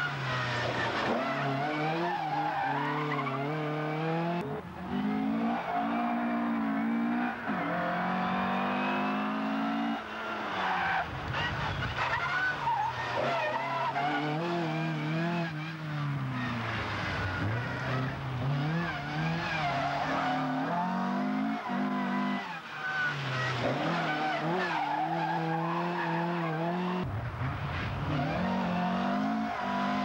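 Mk1 Ford Escort rally car's 1600cc stage 3 four-cylinder engine at full chatter, revving hard through gear changes so the pitch climbs and drops again and again, with the tyres scrabbling on loose gravel.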